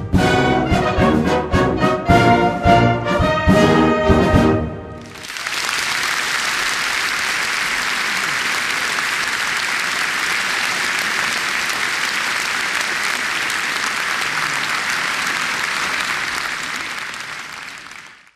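Concert band of brass and woodwinds playing the closing bars of a march, ending about four and a half seconds in. The audience then applauds steadily, fading out near the end.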